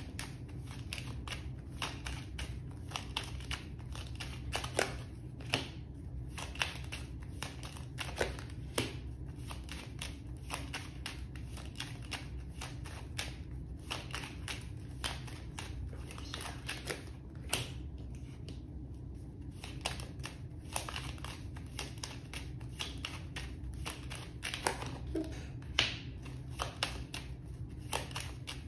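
A deck of tarot cards being shuffled by hand, cards slid from hand to hand: a quick, irregular patter of soft card clicks and slaps, over a steady low hum.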